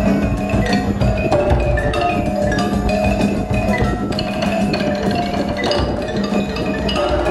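Live percussion ensemble playing: a dense stream of quick marimba and mallet notes over drum strokes, with a steady low note underneath, amplified through a PA.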